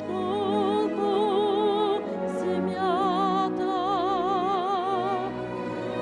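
A woman opera singer sings classically into a handheld microphone, holding long notes with a wide, even vibrato. She breaks off briefly about two seconds in, then moves to a new phrase.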